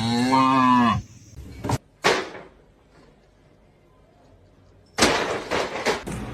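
A cat gives one long meow that rises and then falls in pitch. It is followed by a couple of short noisy sounds, and after a quiet stretch, about five seconds in, by another burst of noise.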